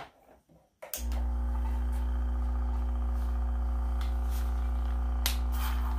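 Vacuum pump on a filter funnel switched on about a second in, then running with a steady low hum as it draws the dissolved-silver solution through a filter pad. A sharp click sounds shortly before the pump starts and another near the end.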